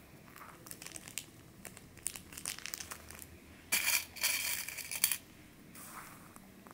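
Dressmaking pins being picked from a metal tin and pushed through a paper pattern into fabric, with light clicking and paper rustling. A louder stretch of rustling comes about four seconds in, lasting about a second, as fingers dig in the tin of pins.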